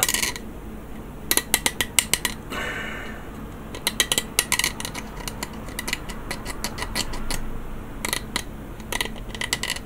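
Hand-scraping a plastic model kit part down to bare plastic: several runs of quick, sharp scratching strokes with pauses between them.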